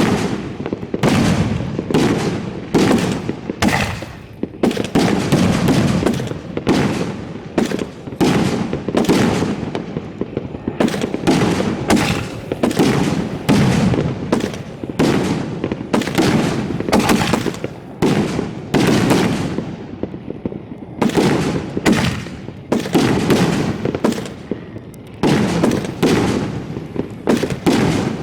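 Fireworks finale barrage heard from close range at the launch site: a dense, continuous string of sharp bangs from shells firing and bursting, about two a second, with crackle between them.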